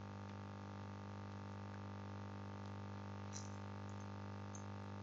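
Steady low electrical mains hum with a buzzy stack of overtones and faint hiss, with a few faint computer-keyboard key clicks past the middle as a name is typed.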